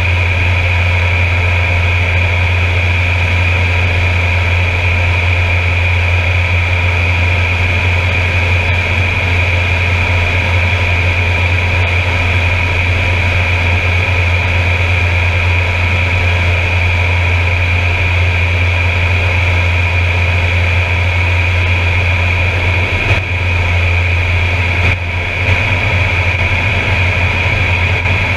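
Air Tractor 402B's Pratt & Whitney PT6 turboprop engine and propeller heard from inside the cockpit in flight: a steady deep propeller drone with a constant high turbine whine above it.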